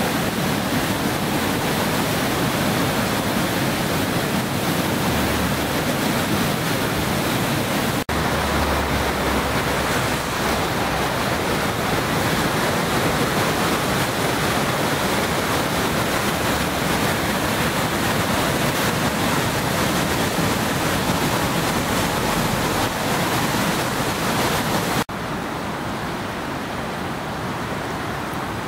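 The Ergolz river in flood, its high water rushing with a steady, even noise. The sound breaks off for an instant about 8 seconds in, and again near the end, after which it is softer and duller.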